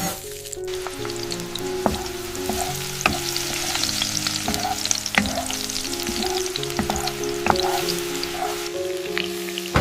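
Food frying in hot oil in a pan, a steady crackling sizzle with a few light taps scattered through it.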